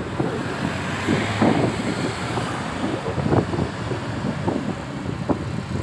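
Cat excavator's diesel engine running, with irregular buffeting from wind on the microphone.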